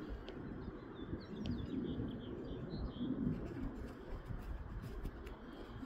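A few faint chirps from small birds, clustered in the middle, over a steady low rumble of wind buffeting the microphone.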